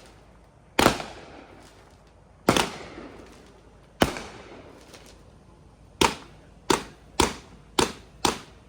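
Consumer fireworks finale going off: a series of sharp bangs, each with a fading echo. The bangs are a second or more apart at first, then come faster, about two a second, near the end.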